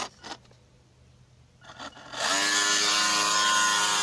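Small electric motor of an RC speedboat cuts out, leaving near silence for about two seconds. It then starts again with a steady whine that rises slightly in pitch as it comes up to speed.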